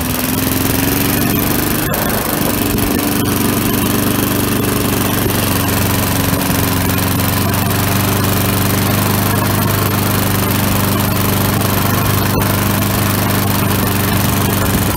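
Old Briggs & Stratton single-cylinder lawn mower engine running steadily on its first run in over ten years, after its ignition points were cleaned and a newer carburetor fitted. Its speed shifts slightly in the first couple of seconds, then holds even.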